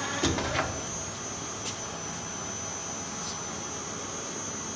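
Steady whirring of a Clausing Metosa CNC flat-bed lathe running, with a thin high steady whine over it. A brief clatter of clicks and a knock in the first half second, and two light clicks later.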